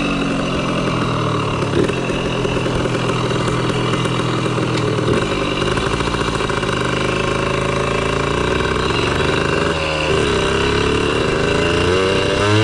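1982 Kawasaki KDX80's small two-stroke single-cylinder engine idling steadily once warmed up. About ten seconds in, the idle dips briefly and wavers before settling again.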